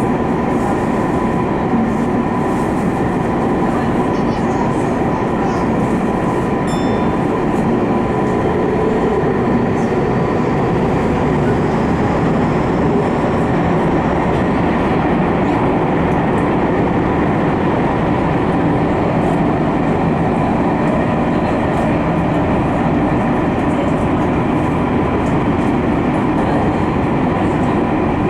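Tokyu 5050 series electric train running through a subway tunnel, heard from inside the leading car: a steady rumble of wheels on rail with a steady whine above it.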